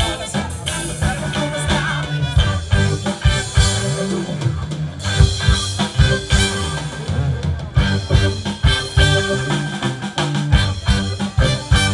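A live band playing on an amplified stage, heard from the crowd: drum kit keeping a steady beat under a moving bass line, with electric guitars and keyboard.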